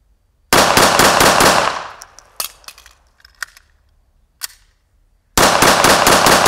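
CZ P-09 9 mm pistol fired in rapid strings: a fast run of about half a dozen shots, then a few isolated sharp clicks, then a second rapid run of shots starting near the end.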